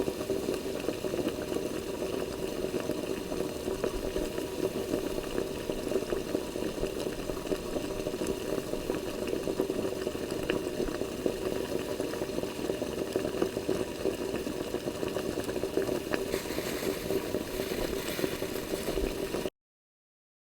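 Water at a full rolling boil, a steady dense bubbling. It cuts off suddenly near the end.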